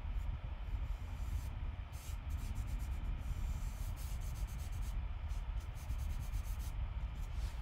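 Folded tissue rubbed back and forth over charcoal on drawing paper, blending the shading: an uneven scrubbing of repeated strokes over a steady low rumble.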